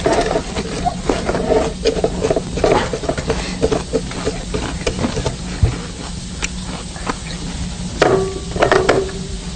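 Irregular crunching and crackling from noisy eating, with a run of louder crunches near the end.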